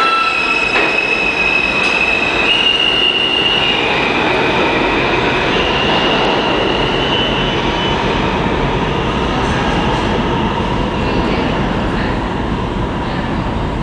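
R160B subway train pulling out of an underground station: a steady rumble of wheels and running gear, with high tones that step up in pitch over the first eight seconds or so. The rumble eases slightly near the end as the train moves away.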